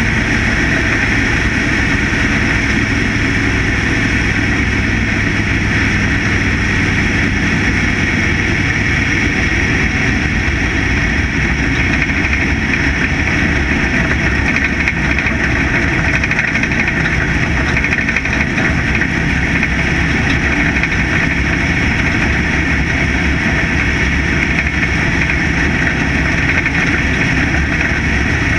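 Factory stock dirt-track race car's engine running hard at racing speed, a loud, steady drone, heard close from a camera mounted on the car.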